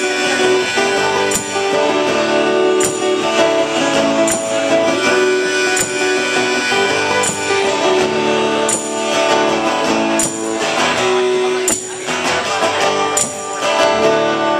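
Live acoustic music from two acoustic guitars being strummed, with sustained chords and a sharp percussive hit about every second and a half.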